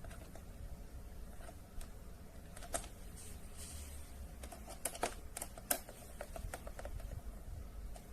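Irregular light clicks and taps from small plastic objects being handled, over a low steady hum. The sharpest clicks fall around the middle.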